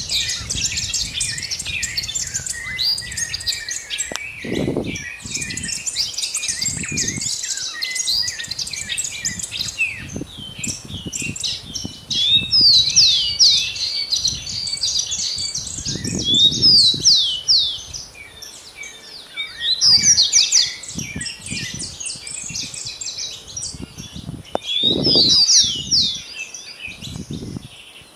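Dawn chorus: many small birds chirping and singing at once in a dense, continuous tangle of high chirps and trills, busiest in a few louder stretches. A few short low rumbles come through underneath.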